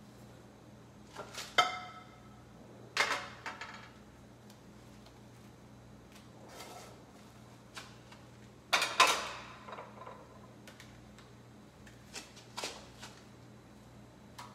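Scattered knocks and clinks of a frying pan and spatula being handled on a portable gas burner, one clink ringing briefly like metal; the loudest clatter comes about nine seconds in.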